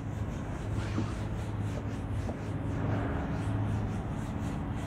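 A felt whiteboard duster rubbing across a whiteboard in repeated wiping strokes, over a steady low hum.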